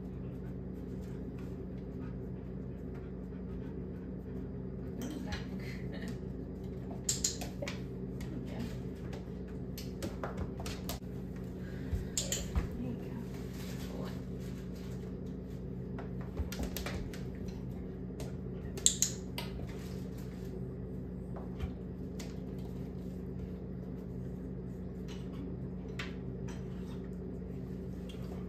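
Light metallic clinks and taps from a small metal cup being handled, a few at a time with long gaps between, the loudest about seven, twelve and nineteen seconds in, over a steady low hum.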